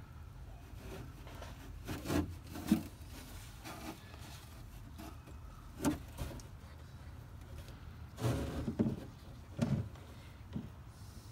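Several light knocks and rubbing sounds at irregular intervals over a low steady hum; the two loudest come about two seconds in and a cluster follows near the end.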